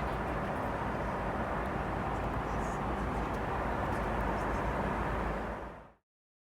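Airliner cabin noise aboard a Boeing 767-300: a steady rumble and rush, fading out about five and a half seconds in.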